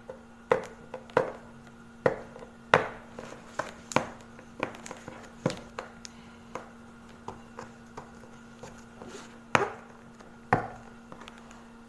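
Irregular knocks, taps and clicks from a heavily taped package being picked and pried at by hand, with a few louder knocks about ten seconds in.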